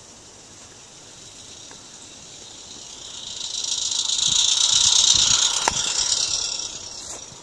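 Roundhouse Katie live-steam garden-railway locomotive passing close by. Its steam hiss and running noise swell up over a couple of seconds, peak as it goes past with a sharp click, then die away.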